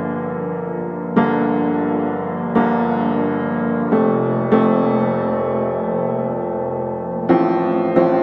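Background piano music: chords struck every one to three seconds, each ringing and slowly fading.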